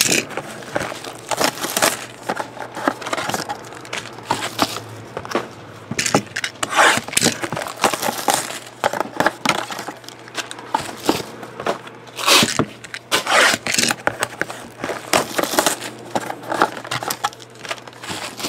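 Crinkling and scraping of shrink-wrapped cardboard card boxes and foil-wrapped trading card packs being handled, opened and stacked. It comes in quick, irregular bursts.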